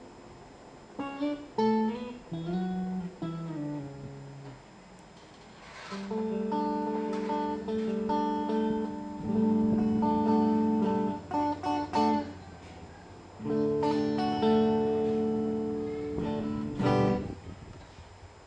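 Electric guitar played clean through a Fender Frontman 25R amplifier. It opens with a short phrase of picked single notes, then plays long ringing chords, a few quick choppy chord hits, another held chord and a final strum that fades out.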